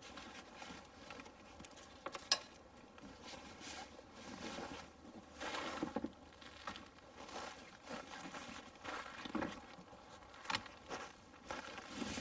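Rustling of a backpack and camping gear being handled, with scattered small clicks and knocks and a sharp click about two seconds in.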